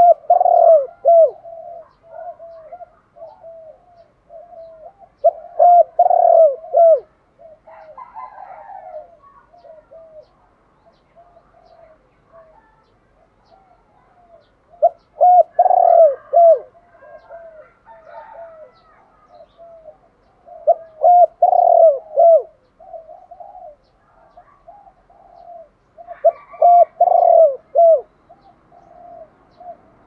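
Spotted dove cooing: five loud phrases of low coos, about one every five seconds, with softer coos in between. It is a caged decoy bird's call, used to train and lure wild doves.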